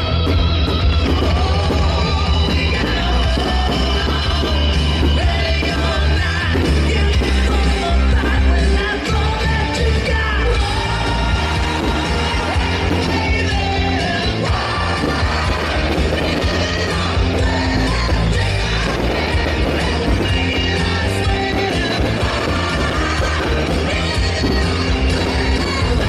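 Loud rock-style music with a singer over a heavy bass line: the soundtrack of a fireworks display set to music.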